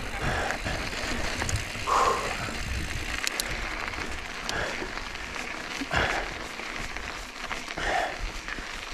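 Mountain bike rolling along a dirt trail: a steady rush of tyre and wind noise with a low rumble, and a soft swell every second or two.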